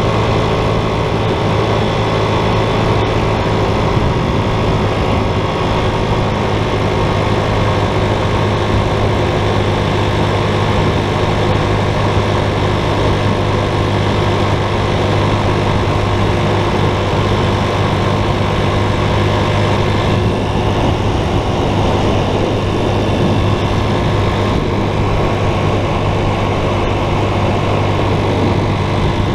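A vehicle's engine running at a steady pitch as it travels along the road, with a constant rush of noise underneath.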